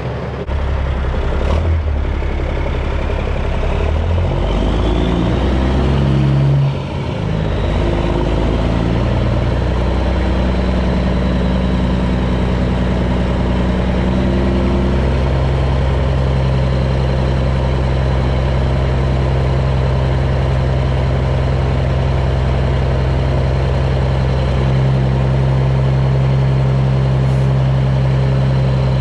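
Kenworth semi truck's diesel engine, its speed changing over the first several seconds as the truck pulls up, then settling into a steady idle.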